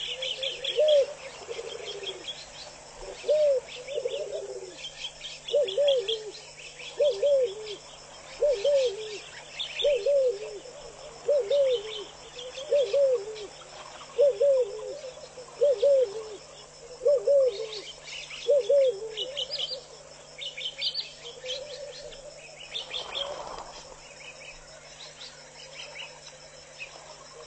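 Waterhole birds calling: a low, arched note repeated about every second and a half, fading out after about twenty seconds, over clusters of higher chirping from other birds.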